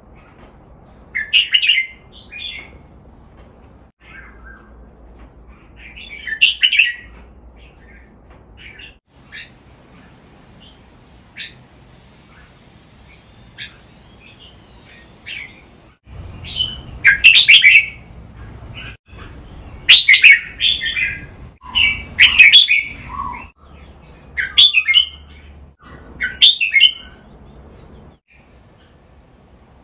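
Red-whiskered bulbuls singing short, bright chirping phrases. There are two phrases in the first few seconds, then sparse faint notes, then a quick run of loud phrases in the second half.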